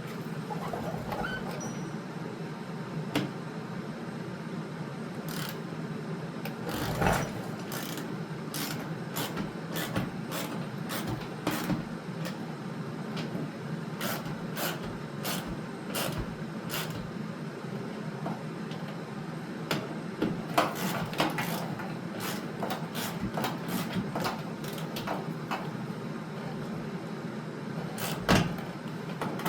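Scattered clicks and knocks of tools and parts being handled during car repair work, some in quick runs and a louder knock near the end, over a steady low hum.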